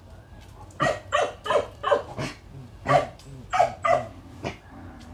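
A dog barking in short, sharp barks: a run of five starting about a second in, then a brief pause and four more.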